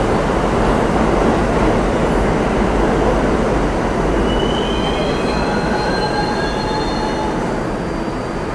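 R68A subway train moving along an underground station platform: a steady, loud rumble of wheels on rail, with high squealing tones from the wheels coming in about halfway through.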